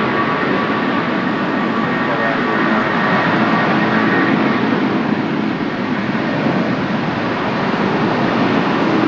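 Airbus A330-323 departing, its two Pratt & Whitney PW4000 turbofans running loud and steady. A faint whine sits over the engine noise in the first half and fades out about halfway.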